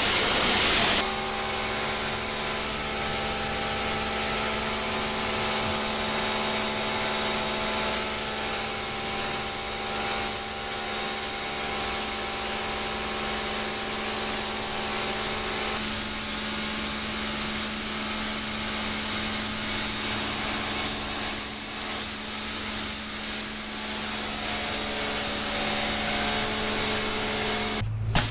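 Tooluck 1800 W electric pressure washer running and spraying: a steady motor-and-pump hum under the loud hiss of the high-pressure water jet. The hum comes in about a second in and holds, with a short break near the end.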